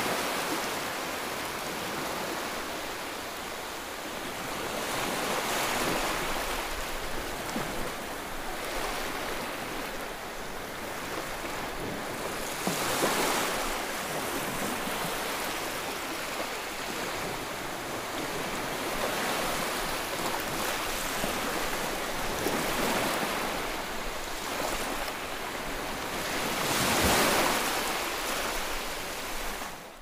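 Small sea waves breaking and washing up on a beach. The surf swells and fades every several seconds, and the biggest wash comes near the end.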